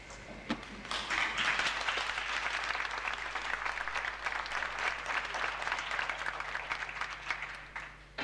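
Theatre audience applauding: a few scattered claps, then full applause building about a second in, dying away near the end.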